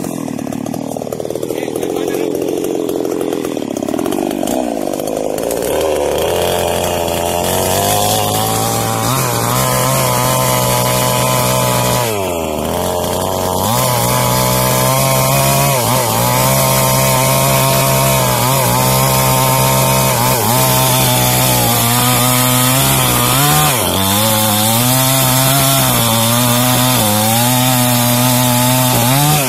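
Small New Paxton two-stroke chainsaw cutting through a jengkol tree stem. Its pitch wanders for the first several seconds, then holds high and steady at full throttle, sagging briefly a few times as the chain loads up in the cut.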